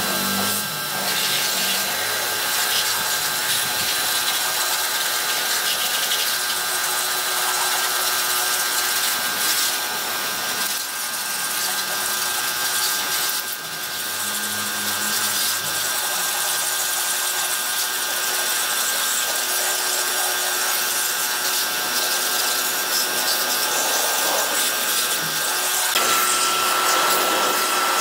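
A handheld power tool running steadily: a hiss with a steady motor whine over it, dipping briefly about halfway through and shifting to a higher whine near the end.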